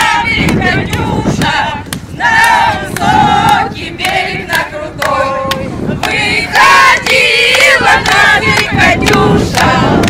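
A group of people singing a song together without accompaniment, with a few sharp taps or claps in between.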